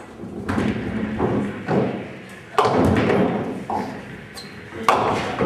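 Nine-pin bowling balls thudding onto the lanes and rolling, with pins being struck: a series of sharp impacts over a steady low rumble. The loudest impact comes about two and a half seconds in, and another near the end.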